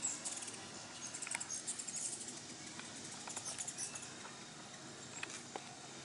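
Ruby-throated hummingbirds at a feeder giving rapid, high-pitched chipping and twittering calls in several short clusters, over faint outdoor background.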